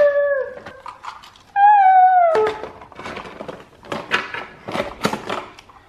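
A toddler's high-pitched vocal squeals, two drawn-out cries, the second falling slightly in pitch, followed by irregular clicks and knocks of plastic toys being handled.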